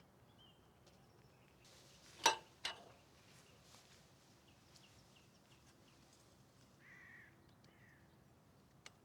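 Quiet outdoor ambience with faint, short high bird chirps. Two sharp knocks come close together a little over two seconds in, and a short bird call sounds about seven seconds in.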